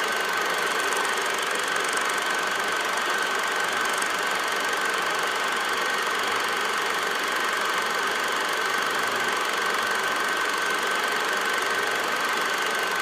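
Projector running: a steady mechanical whir with a constant high whine over it.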